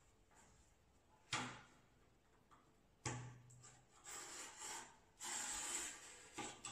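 Sheets of paper being handled and slid across the top of a shelf, with a sharp knock about a second in and another about three seconds in, then stretches of rustling and sliding.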